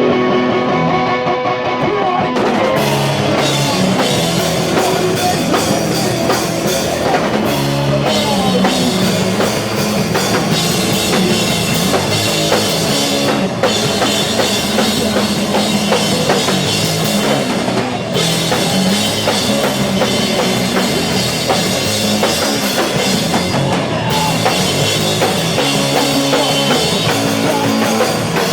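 Live band playing loud and steady: electric guitar and drum kit, with the cymbals coming in about two and a half seconds in and a few short breaks in the cymbals later on.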